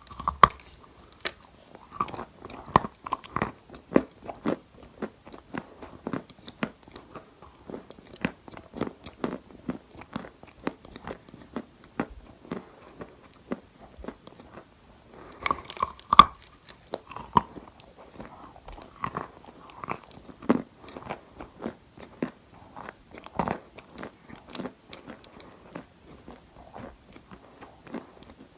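Grey clay being bitten and chewed, with crisp crunches and cracks at irregular intervals. A louder cluster of bites comes about halfway through.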